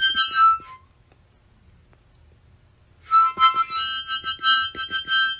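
Background music with a high melody; it stops just under a second in, leaving about two seconds of near quiet, then the tune resumes about three seconds in.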